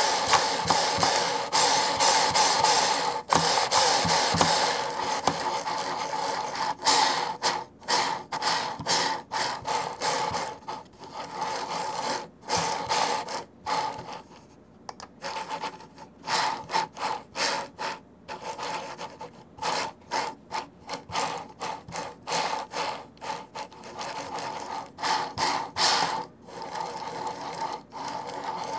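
Ploopy Classic 3D-printed trackball's ball spun hard by hand, a rolling, rubbing noise of the ball on its bearings, at the loudest it can be made to go rather than in normal use. It runs steadily for about the first ten seconds, then breaks into a string of short spins and stops.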